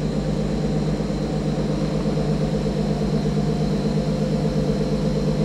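Steady low drone of a fishing trawler's engines and machinery, heard inside the wheelhouse, with a faint high whine over it.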